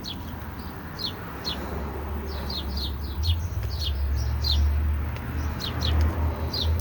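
Small bird stuck on a glue trap chirping over and over, short falling chirps about every half second.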